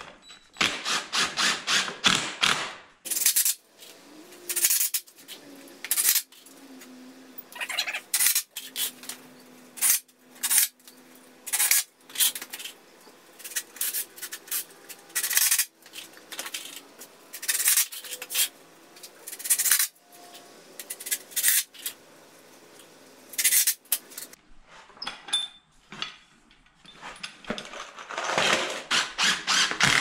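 DeWalt cordless impact driver driving 2-inch screws into pine 2x4 framing, rattling in repeated short bursts with pauses between screws.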